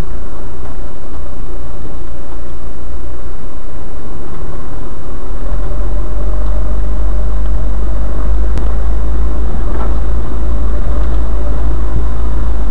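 Vehicle cabin rumble while driving slowly over a rough, stony track: a steady, loud low drone of engine and tyres that gets heavier about five seconds in, with one light knock a little after eight seconds.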